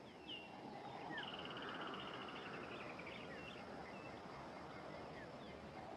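Faint natural bush ambience: scattered short bird chirps and whistles, with a rapid trill of about a dozen notes a second lasting about two seconds, over a low haze of insect hum.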